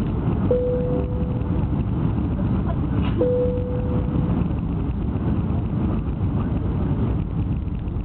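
Steady low rumble of an airliner cabin in descent: jet engines and rushing air heard from a window seat over the wing. Two short ding-like tones sound, one about half a second in and another about three seconds in, each fading away over about a second.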